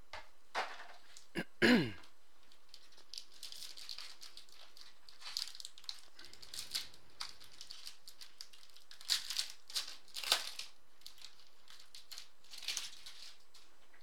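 Crinkling and rustling of packaging and a foil trading-card pack being opened by hand, in short scattered bursts with a few clicks. A short, louder squeak with a falling pitch about two seconds in.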